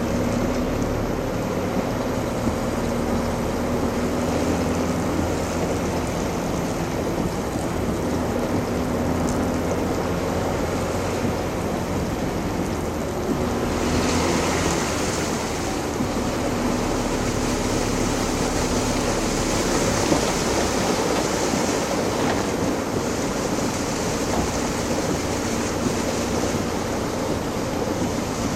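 Steady rushing noise of water with a faint, even engine hum beneath it.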